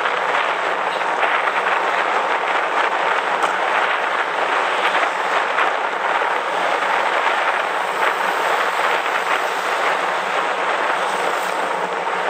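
Steady rushing noise of wind and road on a bicycle-mounted action camera while riding, with cars going past close by.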